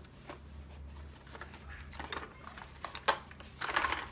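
A small lidded box being handled and opened by hand: light clicks, a sharper click about three seconds in, then a brief scraping rattle near the end.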